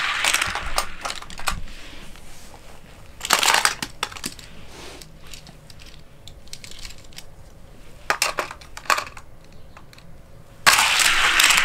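Small die-cast toy cars clattering and rolling down a plastic race track in separate runs: a short rattle about three seconds in, a few clicks around eight to nine seconds, and a longer rolling rush near the end.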